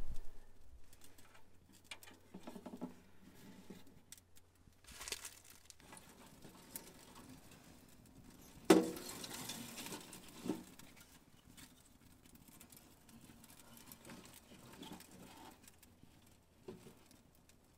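Small pine-wood fire crackling in a metal tent stove with its door open, faint scattered ticks and snaps, with one louder knock about nine seconds in.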